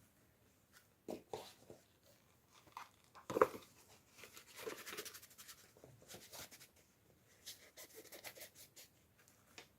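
Toy packaging being handled and opened by hand: plastic crinkling and tearing with light clicks and taps, and one sharper tap about a third of the way in.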